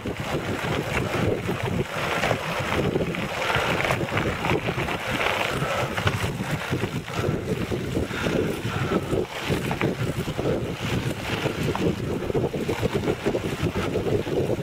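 Tyres of a pedal-powered recumbent quadricycle rolling over a gravel road, a steady rumble with fine crunching and rattling, with wind buffeting the microphone.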